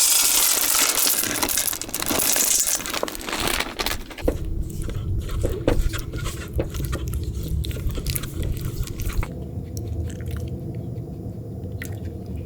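Food-preparation handling sounds: crackling and scraping for the first few seconds, then scattered clicks and knocks over a low steady hum.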